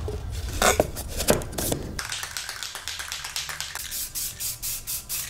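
A few knocks, then a quick, regular run of short tapping or rattling clicks, about three or four a second.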